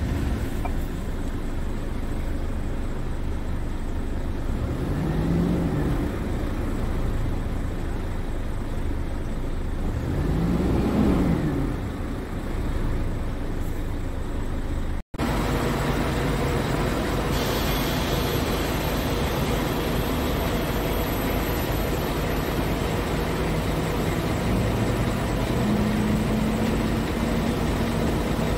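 Scania P truck's diesel engine idling, briefly revved up and let fall back twice. After a cut it goes on running steadily, heard from outside the cab.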